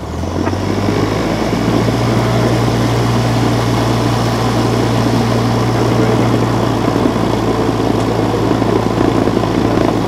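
Cessna 172's piston engine and propeller, heard from inside the cockpit, getting louder over the first second as power comes up, then running loud and steady as the aircraft rolls along the runway.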